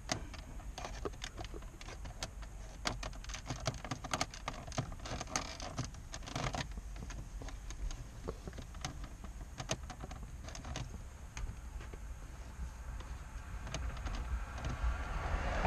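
Irregular small clicks, taps and scrapes of a plastic trim removal tool prying at the edges of a truck's plastic dash trim panel, working it loose, over a low steady hum.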